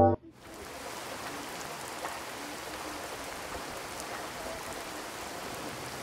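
Music cuts off right at the start, then small waves wash on a pebble beach: a steady, even hiss of surf.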